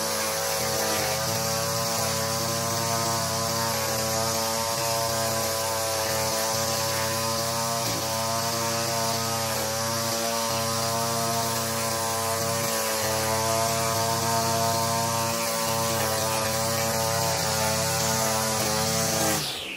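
Powered lawn edger running steadily at high speed as its head cuts the grass along a concrete path edge, a constant whine with a hiss above it.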